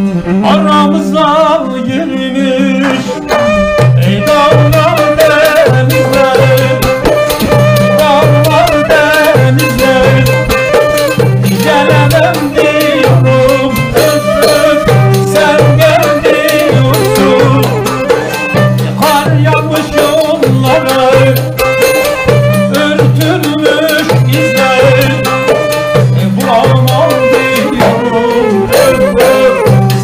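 Turkish folk ensemble playing: violin, bağlama, a reedy wind instrument and frame drums with jingles, with a steady low drum beat that comes in about three and a half seconds in. A male voice is possibly singing along.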